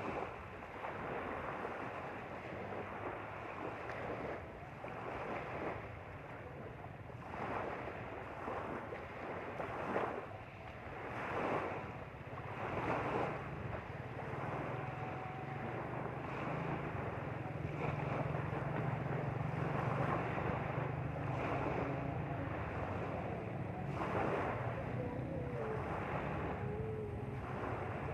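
Lake water rushing and splashing along the hull of a moving motorboat, in irregular surges, with wind buffeting the microphone. A steady low engine hum comes up about halfway through.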